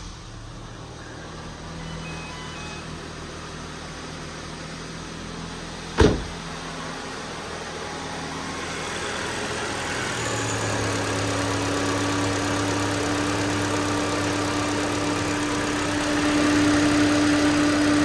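Ford Fiesta engine idling on its first run after a new timing belt was fitted, with no misfires. The electric radiator cooling fan is running, coming in and growing louder from about ten seconds in. A single sharp knock about six seconds in.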